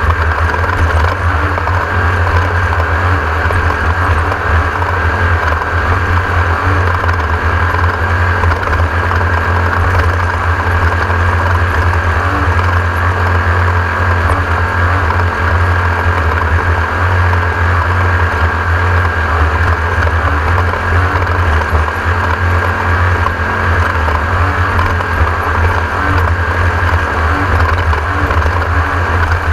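A Class 1600 desert race car's engine running hard at a steady, unchanging pitch, a constant loud drone.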